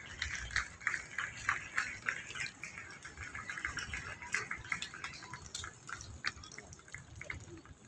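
Faint background chatter of a gathered crowd, with many short, irregular clicks and ticks scattered through it.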